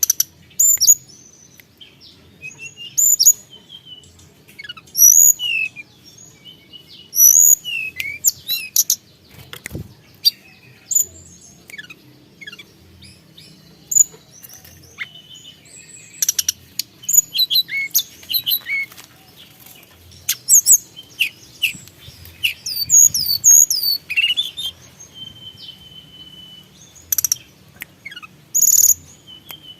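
Tledekan gunung, a flowerpecker, calling actively: rapid, very high, sharp chirps and ticking notes, many of them falling in pitch, come in short bursts with brief pauses between.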